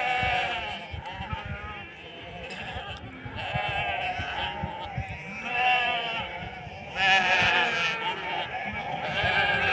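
A flock of sheep bleating, many overlapping calls one after another, swelling louder about seven seconds in.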